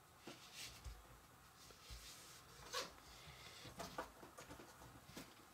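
Faint, scattered clicks and rustles of jigsaw puzzle pieces being picked up and tried in place, about half a dozen irregular taps over a few seconds against near silence.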